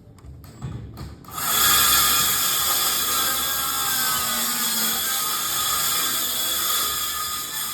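A few sharp clicks, then a small power tool's motor runs steadily for about six seconds with a high whine, stopping sharply near the end.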